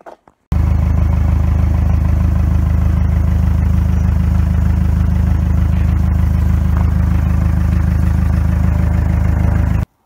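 A small engine running steadily and loud, heard close up from a loader's seat. It cuts in about half a second in and cuts off abruptly just before the end.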